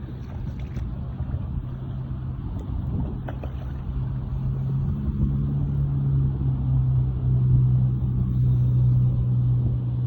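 Boat motor running steadily with a low hum that grows louder about halfway through.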